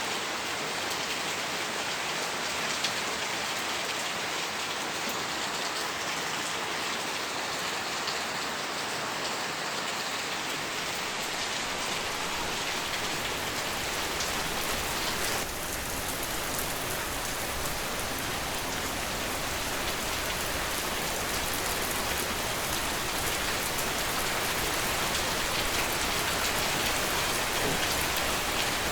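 Steady rain falling, an even hiss of drops on surfaces. About halfway through the sound shifts slightly and becomes a little fuller.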